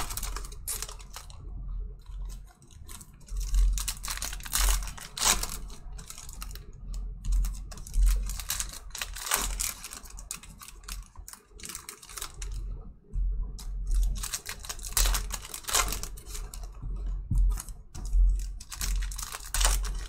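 Foil trading-card pack wrappers being torn open and crinkled by hand, a dense run of irregular sharp crackles and rips, with some low thumps from handling on the table.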